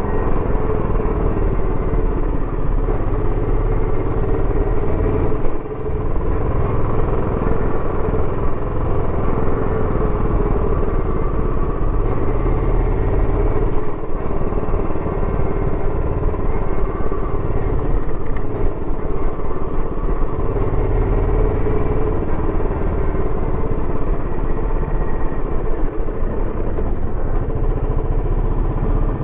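Royal Enfield Bullet 350X's single-cylinder engine running through its stock exhaust while being ridden, the note rising and falling with the throttle. The sound dips briefly about five and a half seconds in.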